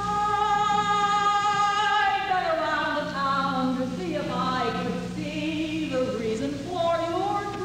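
Women's chorus singing: a long held chord for about two seconds, then a slow phrase with the voices sliding down and moving between notes.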